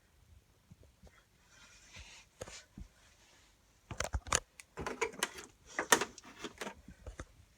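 A quick series of sharp clicks and knocks, scattered at first, then a dense run from about four seconds in lasting about three seconds, with no steady motor hum.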